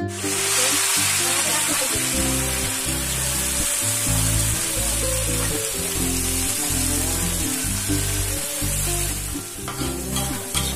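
Food sizzling in a hot pan while it is stirred, with sharp taps and scrapes of the stirring utensil near the end.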